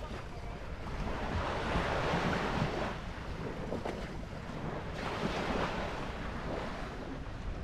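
Sea water washing in swells that come and go every two or three seconds, with wind rumbling on the microphone.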